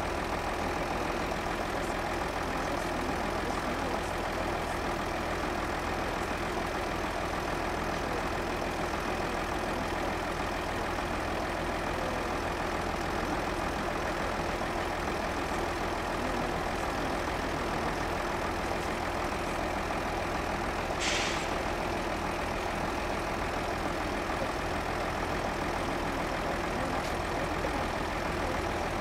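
Diesel locomotive engine running steadily in the distance, its level not changing. There is a short hiss about two-thirds of the way through.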